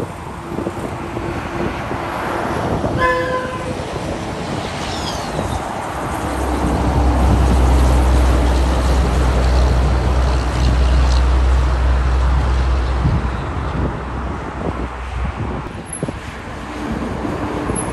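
Road traffic with heavy trucks. About three seconds in, a vehicle horn honks once, briefly. Then a semi-truck tractor hauling a shipping container passes close, its diesel engine a loud low drone for about seven seconds before it fades.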